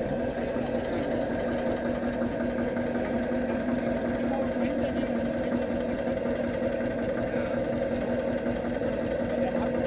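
Engine idling steadily, a constant even running sound with no change in speed.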